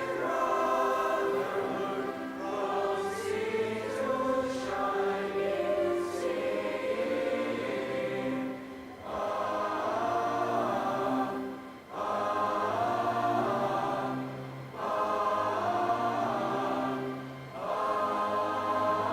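A choir singing, held notes in phrases broken by brief pauses every few seconds in the second half.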